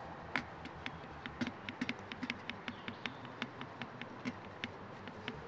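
Suction cup's pump plunger on a TreeFrog roof bike rack being pressed over and over, a rapid, uneven series of light clicks about four a second, pumping the air out so the cup seals down onto the glass roof.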